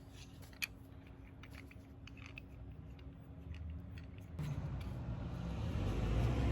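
Scattered light clicks and taps of small metal hinge hardware and tools being handled. About four seconds in, a low rumble swells in and grows louder.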